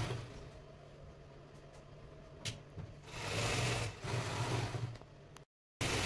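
Electric sewing machine running in two short bursts of about a second each, a little after halfway, stitching through a thick braided jute rug, with a single click shortly before.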